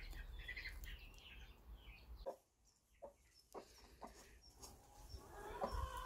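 Faint, soft clucking of a broody hen sitting on her eggs, broken by a moment of dead silence a little over two seconds in.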